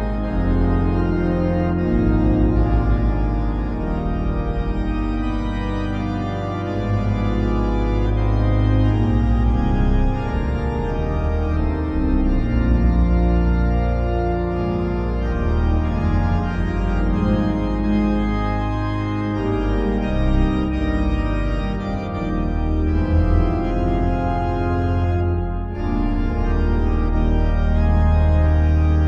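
Instrumental background music on an organ: slow, sustained chords over a deep bass.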